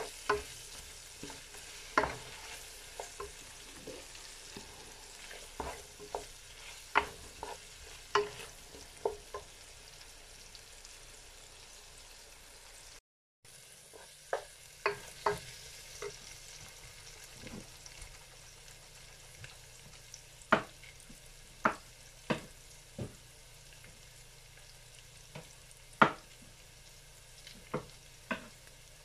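Sliced onions sizzling faintly in oil in a nonstick pan while a wooden spoon stirs them, knocking sharply against the pan at irregular moments. The sound drops out for a moment about halfway through.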